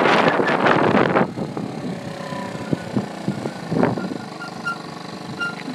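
Wind buffeting the phone's microphone on a moving moped, cutting off suddenly about a second in, leaving the moped's small engine idling steadily with a few short knocks.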